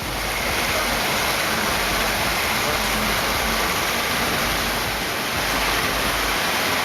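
Steady rushing of river water with a low rumble underneath, as a truck wades through a river.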